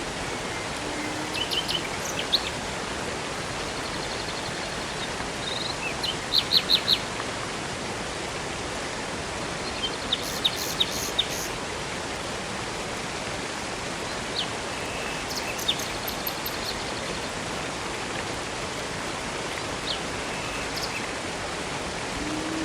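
Steady rush of flowing water with birds chirping over it in scattered short calls, the loudest a quick run of four notes about six seconds in and another cluster near the middle.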